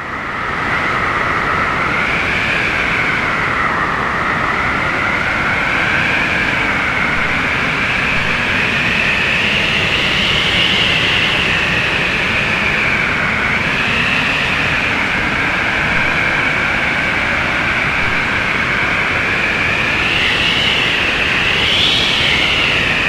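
Blizzard wind sound effect: a steady, loud rush of wind with a howling whistle that wavers up and down in pitch. It swells in over the first second.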